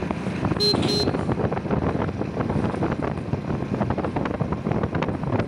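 Motorcycle engine running on the move, with wind buffeting the microphone. The horn gives two short beeps about a second in.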